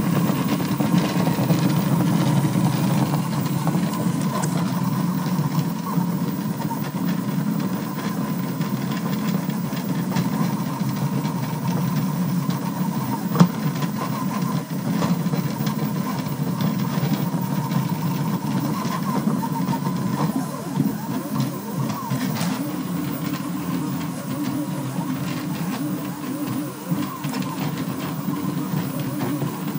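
Delta 3D printer running a fast print: its stepper motors hum and buzz steadily as the effector darts across the bed on very fast moves, with a thin steady whine above the hum. A single sharp click about halfway through.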